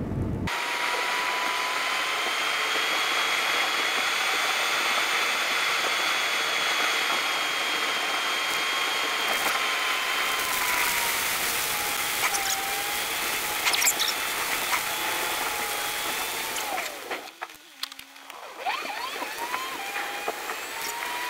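Car driving noise heard inside the cabin, sped up along with the dashcam footage: a steady high hiss with a thin wavering whine. It drops away for a second or two near the end, then comes back.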